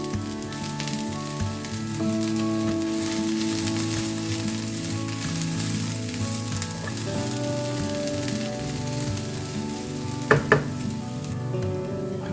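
Food sizzling and frying in a pan while it is stirred, with two sharp knocks about ten seconds in, like a utensil striking the pan. The sizzle drops away near the end. Background music plays underneath.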